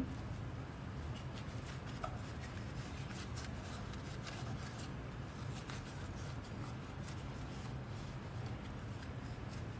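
Faint rubbing and light clicking as rubber-gloved hands handle and turn a small wooden box, over a steady low hum in the room.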